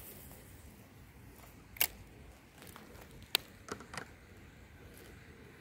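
Two sharp clicks about a second and a half apart, then a few lighter ticks, over a faint steady background hiss.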